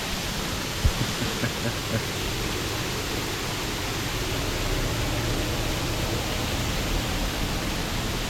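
Waterfall rushing steadily, with a few soft low knocks in the first two seconds.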